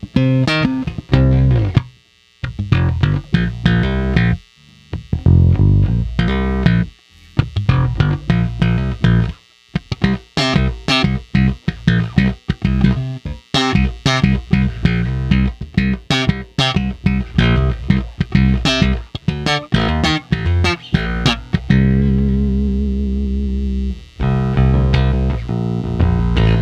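Squier Classic Vibe '50s Precision Bass played through a Fender Rumble 100 bass amp: a run of plucked notes with a few brief pauses. Near the end it holds a longer, wavering note.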